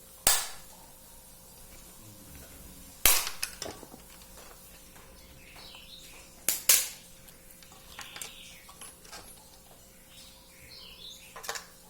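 Kitchen clatter: a few sharp clinks and knocks, spaced seconds apart, as dishes and utensils are handled while a lasagna is being assembled.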